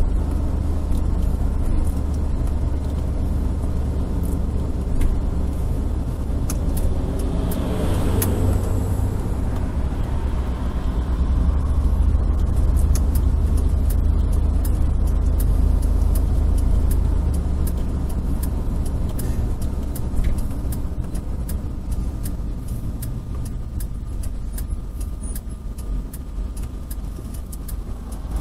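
Steady low rumble of engine and road noise inside a moving vehicle, picked up by a dash cam, with a brief swell of noise about eight seconds in.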